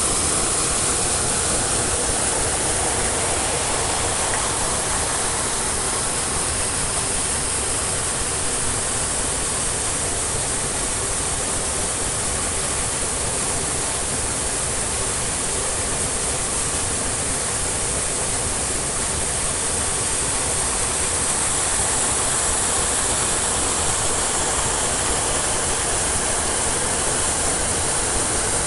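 Waterfall rushing, a loud steady roar of falling water.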